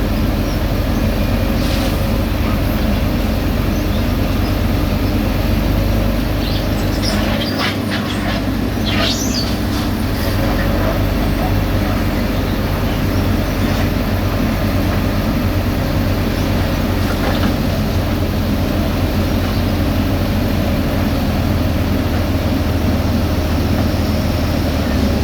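Diesel engines of heavy road-paving machinery running steadily, with a few brief high squeaks about seven to ten seconds in.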